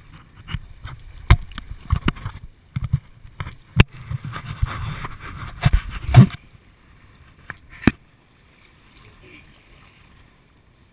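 A kayak moving through water under kite pull: irregular knocks and slaps of water against the hull, with a rush of water about four to six seconds in. It goes much quieter after about eight seconds.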